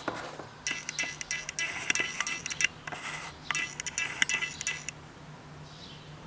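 Music with a run of short clicks and high tones that fades out about five seconds in.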